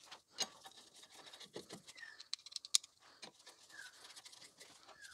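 Phillips screwdriver driving a small rotor retaining screw into the hub of a new rear brake disc: faint, irregular scratchy clicks of the tip working in the screw head, with a few short, faint squeaks.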